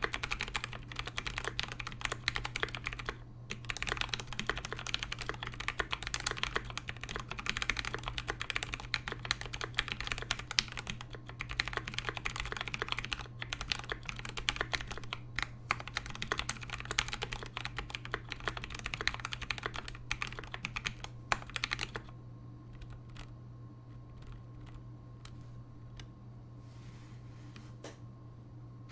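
Fast typing on a mechanical keyboard with lubed Zealios v2 tactile switches in a brass plate and GMK doubleshot ABS keycaps. The keys make dense, rapid clacks. The typing stops about 22 seconds in, leaving a few faint clicks over a low steady hum.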